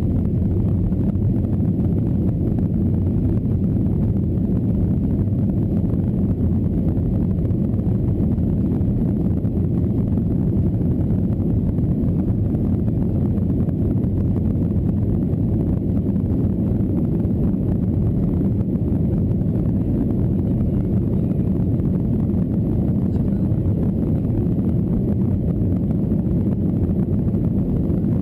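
Airliner cabin noise while taxiing: a steady low rumble of the engines and the plane rolling along the ground, unchanging throughout, with a faint high-pitched steady whine above it.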